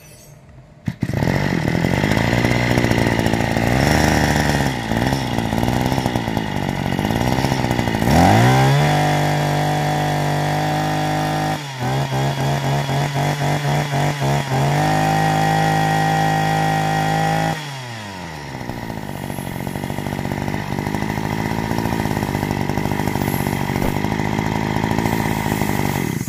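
Maruyama BK200 two-stroke brush cutter engine starting about a second in and idling with its speed swaying up and down. It is revved to high speed, holds there with a stretch of quick stutters, then drops back to idle and is shut off at the end.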